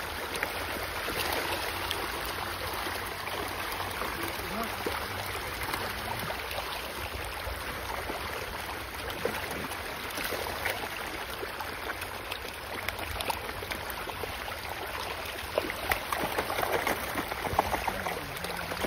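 A dense shoal of fish thrashing and splashing at the water's surface in a feeding frenzy. It makes a steady churning, slapping water sound, with sharper splashes near the end.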